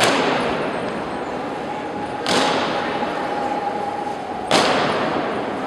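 Honor guard's boots stamping on the stone floor in unison in a slow ceremonial goose step: three loud stamps about two and a quarter seconds apart, each echoing on through the large hall.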